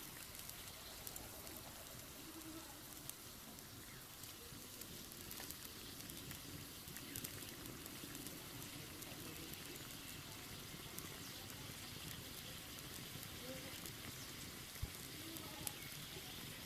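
Curry boiling hard in a metal pan over a wood fire: a faint, steady bubbling hiss with scattered small pops.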